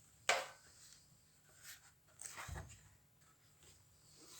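Handling noises as the soundbar is moved about: a sharp click about a third of a second in, then faint scraping and rubbing with a soft thump about halfway through.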